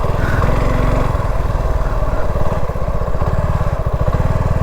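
Suzuki V-Strom 250's single-cylinder engine running steadily, its exhaust beating in an even low chug.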